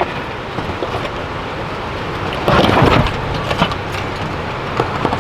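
Vehicle engine running at low speed as the vehicle crawls over a boulder on a rocky off-road track, with a louder stretch about two and a half seconds in.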